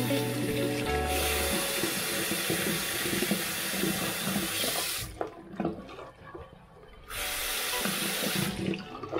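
Bathroom sink tap running into the basin over hands rinsing shallots, with splashing and rubbing. The flow stops about five seconds in, leaving small splashes and drips, then runs again for about a second and a half.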